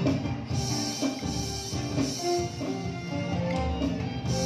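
Live ensemble music: violins playing a melody over strummed acoustic guitar, bass and a drum kit keeping a steady beat.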